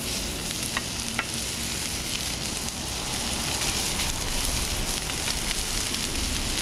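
Diced bacon sizzling and frying in a hot sauté pan as it starts to render its fat. A couple of light clicks of a knife blade against the pan come about a second in.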